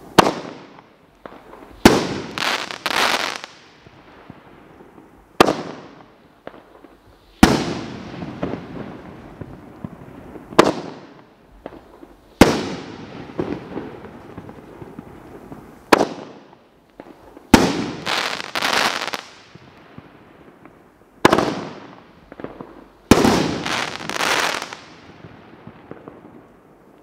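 A 500-gram consumer firework cake firing its shots one at a time, a couple of seconds apart. Each sharp report is followed a moment later by a spray of crackling pops that fades out. The last shot goes off a few seconds before the end.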